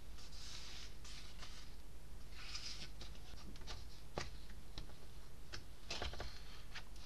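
Paper rustling as a large illustrated hardback is handled and its pages are turned, with a few light taps and knocks.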